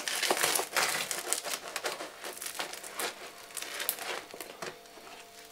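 A knife sawing through the hard crust of a round loaf of bread: a rapid crackling and crunching. It is loudest in the first three seconds and thins out toward the end.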